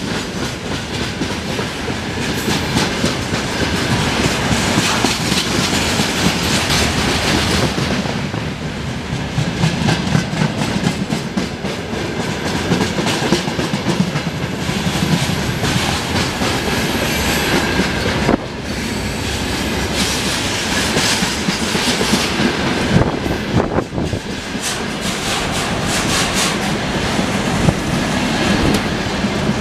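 Freight train wagons rolling past at speed, wheels clattering steadily over the rail joints.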